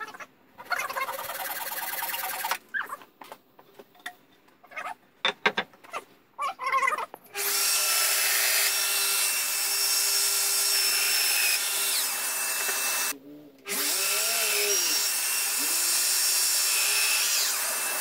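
Festool Domino joiner with dust extraction plunge-cutting mortises in spotted gum hardwood: a steady whining motor that runs for about five seconds, stops briefly, then starts again and runs on. Before it starts, a few seconds of hand rubbing strokes on wood and some light knocks.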